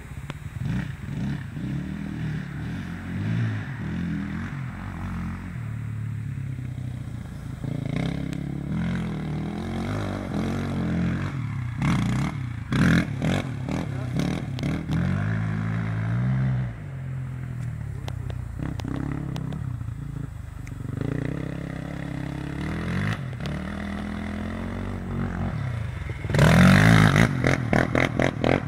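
Can-Am DS 450 sport quad's single-cylinder four-stroke engine revving up and down as it rides, mixed with scraping and clattering noise. The engine gets loudest near the end.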